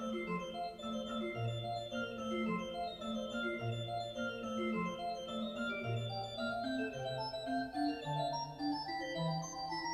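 Pipe organ playing a running line of quick notes over low bass notes that come in about every two seconds.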